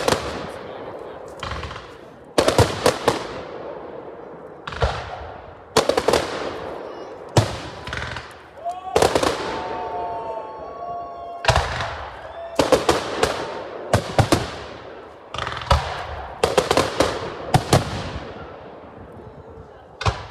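Aerial firework shells bursting overhead in clusters of sharp bangs, several in quick succession, each fading out in an echoing tail.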